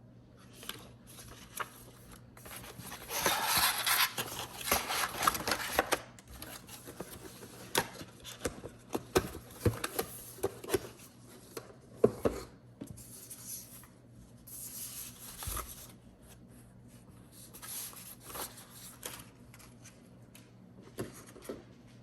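Unboxing handling: packaging rustling, loudest for a few seconds near the start, then scattered clicks and knocks and more short rustles.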